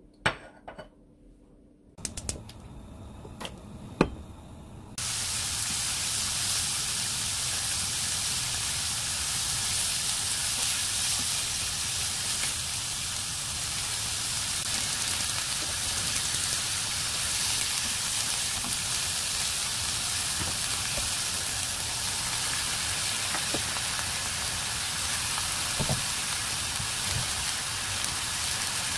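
Sliced beef sizzling in hot oil in a nonstick wok, a steady frying hiss that sets in about five seconds in. A few sharp knocks come just before it starts.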